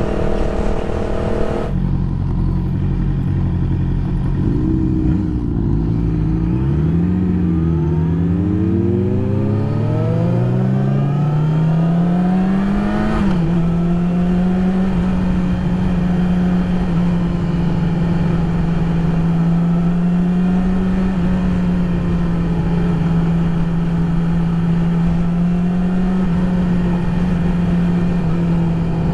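2020 Yamaha YZF-R6's inline-four engine under way. The revs drop about two seconds in, climb steadily under acceleration to a peak near thirteen seconds, then fall back and hold at a steady cruise.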